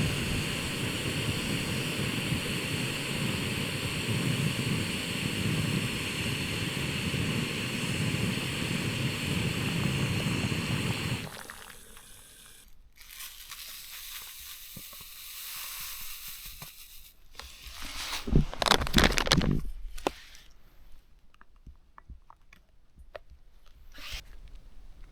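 A camping gas stove burner hissing steadily, cutting off suddenly about eleven seconds in. Quieter crunches, clicks and scrapes of handling food and gear follow, with a louder bout of handling noise a little past the middle.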